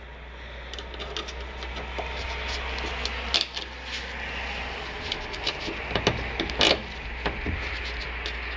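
Sharp metallic clicks of a small screwdriver working at the end fitting of a VW Golf's tailgate gas strut, loudest about halfway through and twice more near the end, over a steady hiss and low hum.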